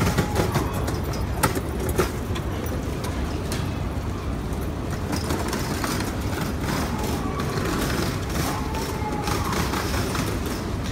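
Steady low hum of a stationary E4 series Max Shinkansen trainset's on-board equipment at the platform, with a few sharp clicks in the first two seconds and faint wavering tones later.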